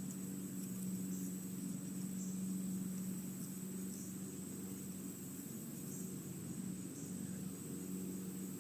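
A steady low hum with a thin, steady high-pitched tone above it and faint ticks about once a second.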